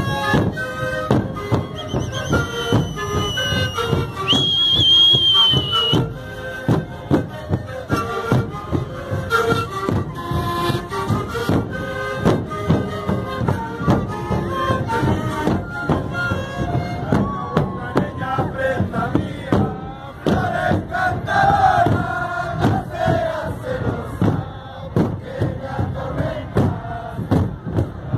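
Sikuri ensemble playing: many siku panpipes sounding short, overlapping melodic notes over steady bombo drum beats, with players and crowd shouting. A high whistle sounds for several seconds near the start.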